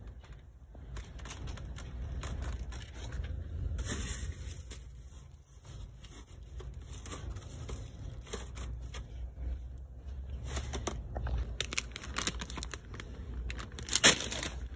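Shopping cart pushed along a grocery aisle: a low rumble with rattling, scraping and clicking handling noise. One sharp click near the end is the loudest sound.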